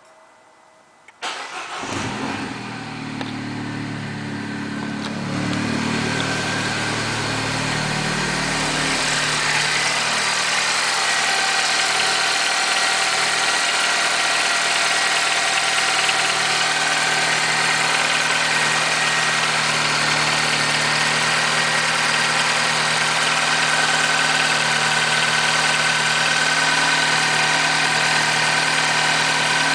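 Peugeot RCZ's 1.6 THP 200 turbocharged four-cylinder engine cold-starting about a second in, running at a raised, unsettled idle and then settling into a steady idle after several seconds. A rattle is heard on this cold start, which the owner links to the timing chain.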